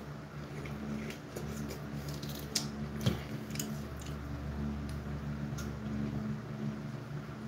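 An orange being peeled by hand: scattered small tearing and squishing clicks of the peel coming away, the sharpest about two and a half and three seconds in, over a steady low hum.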